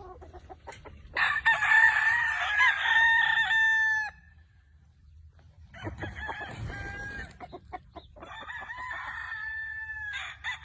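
Gamefowl roosters crowing: one long, loud crow about a second in, followed by several more crows, the last starting near the end.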